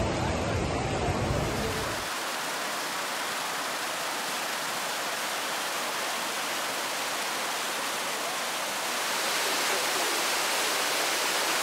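Steady rushing of muddy floodwater, an even hiss-like wash. A low rumble sits under it for the first two seconds, and the rushing grows somewhat louder about nine seconds in.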